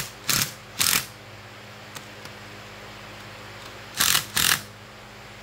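Cordless drill run in short trigger bursts, driving the bolts that hold the end cap on a golf cart motor: two quick bursts near the start and two more about four seconds in.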